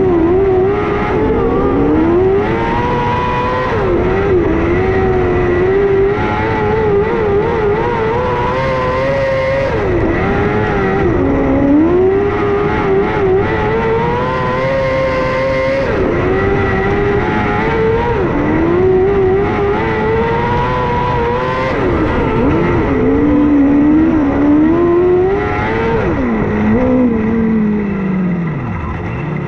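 Micro sprint car's engine heard onboard at racing speed, the revs climbing along each straight and falling off into each turn every few seconds, with a steady high whine over it. Near the end the revs fall away low as the car slows.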